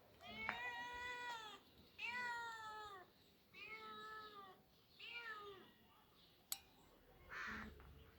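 A cat meowing repeatedly: four drawn-out meows, most falling in pitch at the end, then a sharp click and a shorter, breathier call near the end.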